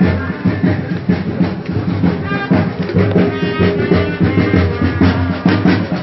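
Loud music with drums, playing without a break.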